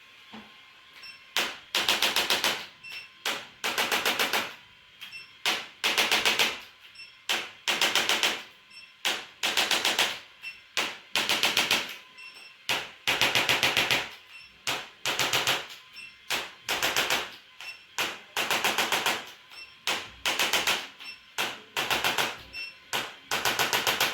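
Rapid percussive massage strokes on a patient's body, coming in short bursts of very fast beats, each burst under a second long and repeated about every two seconds.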